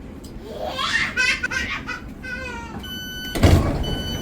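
Train doors closing: repeated electronic door-warning beeps start about three seconds in, and the sliding doors shut with a heavy thump. Before this comes a child's high voice.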